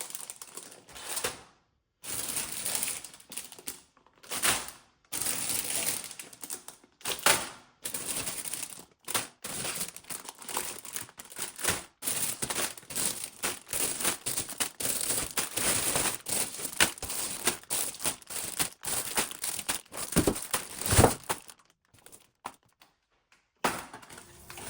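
Packaging being handled and unwrapped, crinkling and rustling in irregular bursts with brief pauses.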